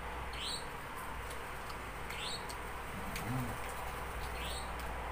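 A small bird chirping faintly: three short rising chirps about two seconds apart, over a steady low hum.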